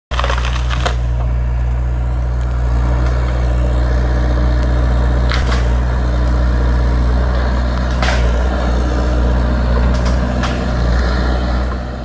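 Hyundai mini excavator's diesel engine running steadily under work, with a few brief sharp knocks over it.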